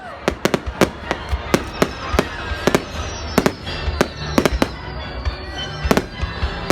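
Fireworks display going off: a rapid, irregular string of sharp bangs and cracks, several a second, over a continuous low rumble from the barrage.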